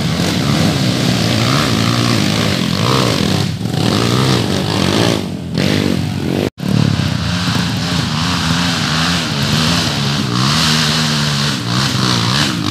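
Dirt bike engine revving up and down on a slippery dirt trail, its pitch rising and falling as the throttle is worked, with a momentary break about halfway through.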